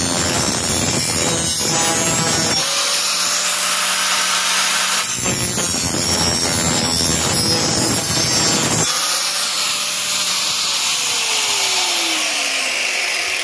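Corded angle grinder sharpening a steel lawnmower blade: the disc grinds the edge for a couple of seconds, the motor whines running free, and then it grinds again for about four seconds. After that the grinder is switched off and its whine falls in pitch as it spins down.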